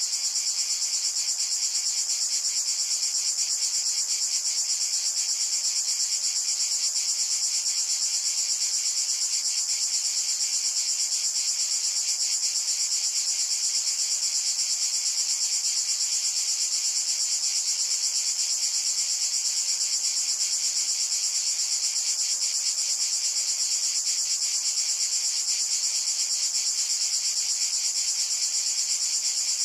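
Steady, high-pitched insect chirring, a fast unbroken trill of crickets.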